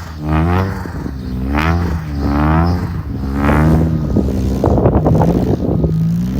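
Infiniti Q50's VR30 3.0-litre twin-turbo V6 revved in quick blips, each rev rising and falling, about one a second. From about four seconds in, a rapid fluttering chatter runs over a steady engine note: turbo flutter, made louder by the open aftermarket intakes.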